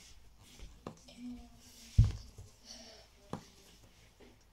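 Silicone pop-it keyboard fidget toy having its bubbles pressed one at a time with a finger: a few soft separate pops about a second apart, the loudest one, about two seconds in, with a low thump.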